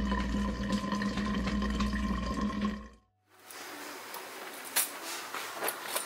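Tap water running from a drinking-water faucet into a stainless-steel vacuum flask, a steady gushing fill for about three seconds that cuts off suddenly. Afterwards there is quieter background with a couple of light clicks.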